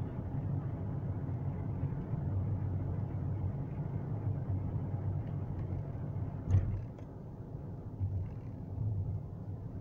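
Car driving, heard from inside the cabin: a steady low rumble of engine and road noise, louder while in the tunnel and dropping a little after about seven seconds once the car is out. About six and a half seconds in there is one sharp thump, the loudest sound.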